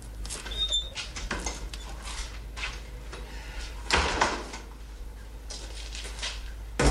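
Clunks and scuffs of a metal jerry can being carried and handled, with a brief squeak under a second in, a louder knock about four seconds in and a sharp knock near the end.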